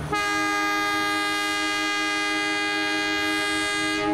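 Diesel locomotive horn sounding one long, steady blast of about four seconds, several notes sounding together as a chord, starting and stopping sharply.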